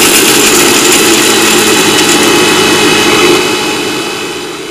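Electric mixer grinder running at full speed, dry-grinding roasted peanuts and grated coconut to a powder in its steel jar: a loud, steady motor whir that fades over the last second or so.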